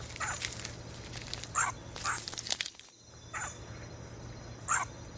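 A series of short animal calls, about five, spaced unevenly over a steady low background hum.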